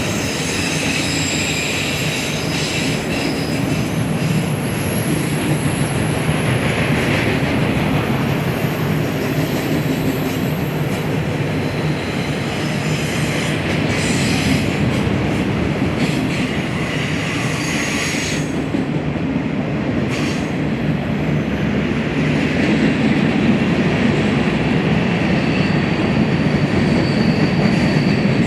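BNSF freight train rolling past: a steady rumble of cars and wheels on the rails, with high wheel squeal that comes and goes. It grows a little louder in the last few seconds.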